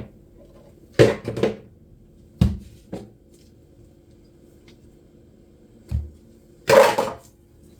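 Several short knocks and clatters of kitchen things being handled, such as a bowl and its cover, with the loudest and longest just before the end.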